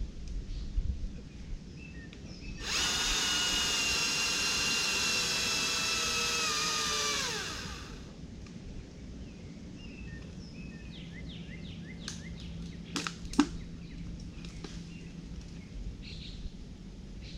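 Battery chainsaw running steadily for about five seconds, then winding down in pitch and stopping with no idle. A few sharp knocks or clicks come a few seconds later.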